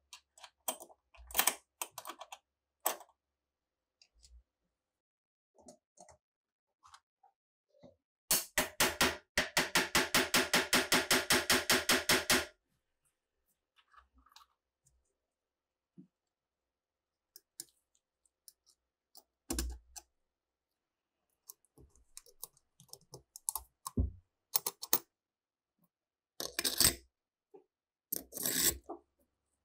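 Small steel rifle parts being handled and fitted: scattered clicks and light taps, with a rapid, even run of clicks, about ten a second for some four seconds, a third of the way in. A few dull knocks come later as parts are set down on the mat.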